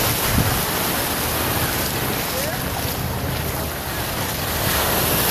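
Gulf surf breaking and washing in at the shoreline, rough waves, with wind buffeting the microphone.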